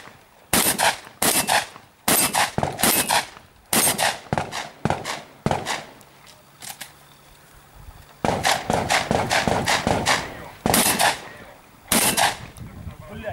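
Shotgun fired in rapid strings of shots at targets, each shot sharp with a short ringing tail. A pause of about two seconds falls midway before the shooting resumes.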